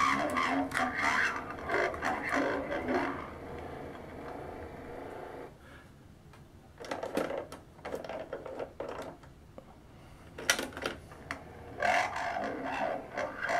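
1974 G.I. Joe Troubleshooter talking communication unit playing back a recorded phrase slow and garbled, then a steady mechanical whir, a run of clicks as its control lever is worked, and a second slow phrase starting near the end. The slow, unreliable playback is a sign of its worn talking mechanism and weak connections.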